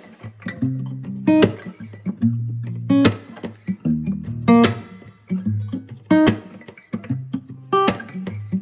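Background music: strummed acoustic guitar over a bass line, with a sharp percussive hit about every second and a half.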